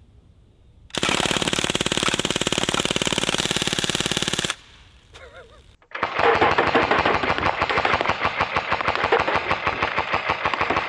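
CO2-powered MP40 replica BB gun firing full auto: a rapid, even stream of shots in a burst of about three and a half seconds starting about a second in. After a short pause, a second long full-auto burst begins about six seconds in.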